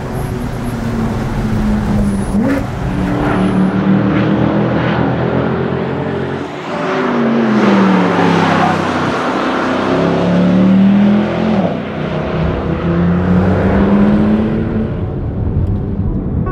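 Two sports car engines, a Porsche 997 GT3 RS flat-six and a Mercedes CLK 63 AMG Black Series V8, revving and accelerating hard, their pitch climbing and dropping with the gear changes. About seven seconds in, the pitch falls away as one car passes by.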